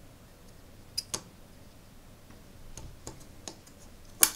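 Handling clicks and taps as a plastic battery holder and a glass LED tube are moved about and set down on a silicone work mat: two clicks about a second in, a few lighter ones around three seconds, and a sharper click near the end.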